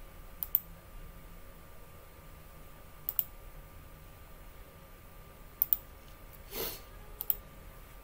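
Clicking at a computer: four short pairs of sharp clicks spread a couple of seconds apart, with a brief rustle about two-thirds of the way through.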